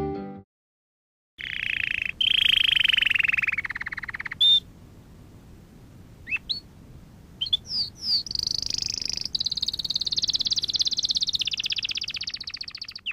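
High-pitched animal calls: a rapid buzzing trill, a few short rising chirps, then a long pulsed trill that slowly drops in pitch.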